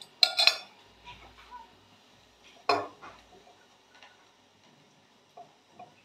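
Metal spoon clinking against ceramic coffee mugs: a quick cluster of clinks near the start, one louder clink a little before halfway, and two light taps near the end.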